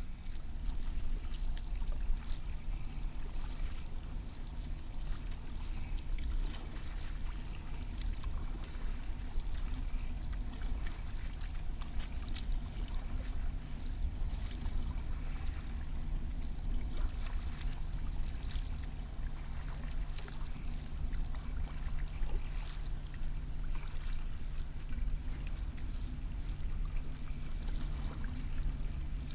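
Kayak paddle strokes, the blades dipping and dripping water in irregular splashes, over a steady low rumble and hum.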